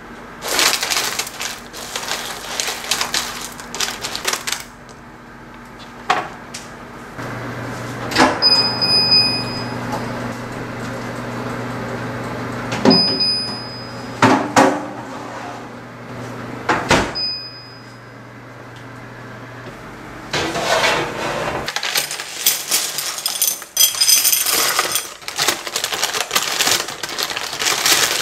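Ceramic pie weights rattling and clinking against each other under baking paper in a tart tin. In the middle a steady oven hum runs, with three short high beeps from the oven's control panel. The hum cuts off, and the clatter of weights and rustling paper returns louder near the end as the weights are lifted off the blind-baked crust.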